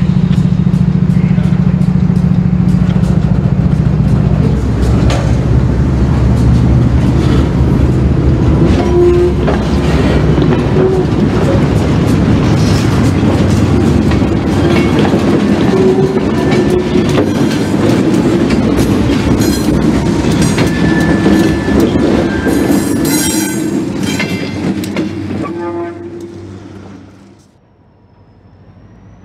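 Diesel freight locomotive running at low speed as it moves a boxcar past, with wheels clicking over rail joints and brief wheel squeals. The sound drops away sharply near the end.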